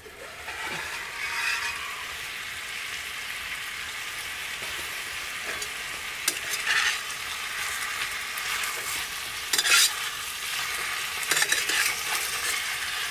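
Marinated chicken sizzling in a steel frying pan on a portable butane stove, stirred with a spoon that scrapes the pan several times. The strongest scrape comes about two thirds of the way through.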